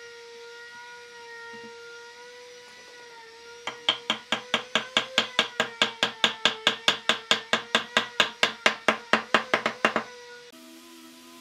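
Hammer rapidly tapping a wooden crosspiece down into the glued slot of a wooden pedestal, seating the joint. The fast, even blows, about six a second, start a little under four seconds in and stop near the end.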